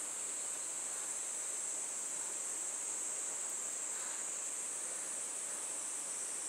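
Steady, high-pitched chorus of insects shrilling without a break, over faint outdoor hiss.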